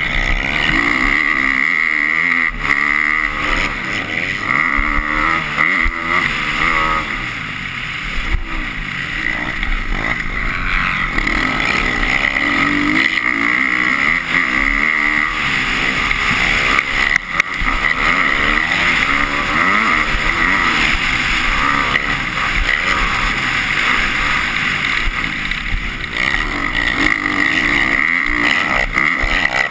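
250-class motocross bike engine at race pace, revving up and down repeatedly as the rider works the throttle and shifts gears, heard close up from the rider's own bike.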